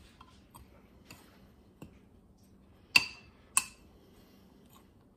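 Metal spoon stirring dry flour in a glass measuring cup: faint light ticks, then two sharp ringing clinks of spoon against glass about three seconds in, half a second apart.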